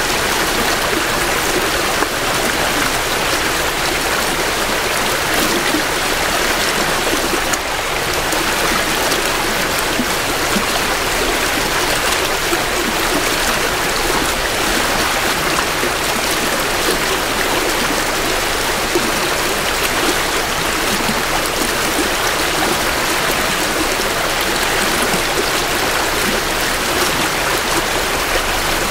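Creek water flowing steadily over rocks, a continuous rushing with some trickling and gurgling, close to the water's edge.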